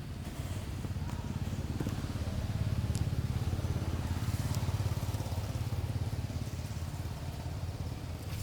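A motor vehicle engine running steadily as a low rumble, getting a little louder in the middle and easing off towards the end, with a few faint clicks over it.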